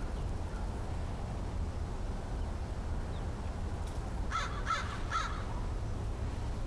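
American crow giving three quick caws about four seconds in, over a steady low background rumble.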